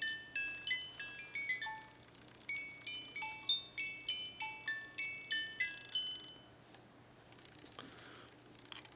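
The miniature music box movement of a Reuge automaton pocket watch playing a tinkling tune of short, high plucked notes that ring and fade, set off on demand by its push button. The tune stops about six seconds in.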